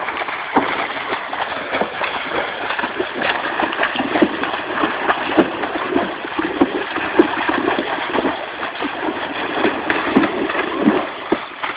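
Horses splashing in water: a continuous run of irregular splashes and sloshing.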